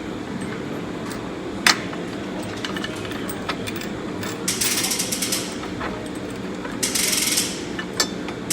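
Ratchet wrench clicking in two short bursts, about halfway through and near the end, as bolts are run in. Scattered metallic tool clinks accompany it, with one sharp knock just under two seconds in.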